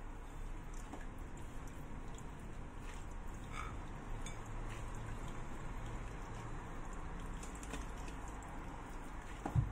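Faint soft rustling and squishing of a plastic-gloved hand kneading crumbly cookie dough in a glass bowl, with a dull thump near the end.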